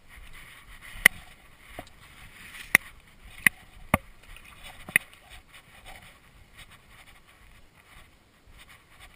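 Handling noise from fly line being stripped in by hand: six sharp clicks or taps over the first five seconds, then only a faint steady hiss.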